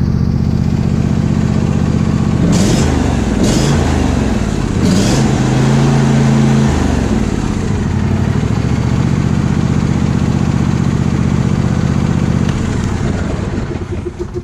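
John Deere D140 lawn tractor engine running steadily, revved up a few seconds in and dropped back to a steady run just after the middle. Near the end it dies away as it is shut off.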